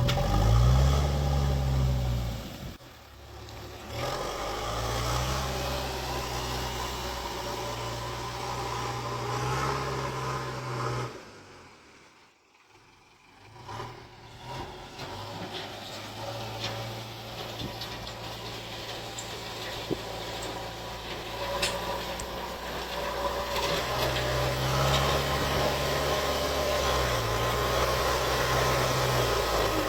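JCB 3DX backhoe loader's diesel engine working, its revs rising and falling as it levels, with two brief quieter drops, around three seconds in and near the middle.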